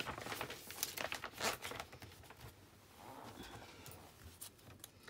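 Paper catalogue pages rustling and crinkling as they are handled. A run of crackles comes in the first two seconds, then it goes quieter with a few scattered crackles.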